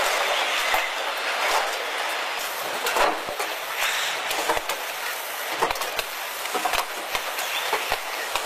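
Factory floor of a robotic car-body assembly line: a steady mechanical hiss with irregular clanks and clicks from the robots and tooling, one sharper knock about three seconds in.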